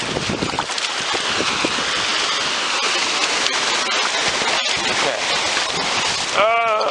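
Steady rain falling, an even hiss. A short pitched call cuts in near the end.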